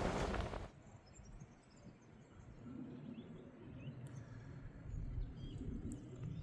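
Strong wind rushing over the microphone, cutting off abruptly under a second in. Then a quiet outdoor background with a faint low rumble and a few scattered bird chirps.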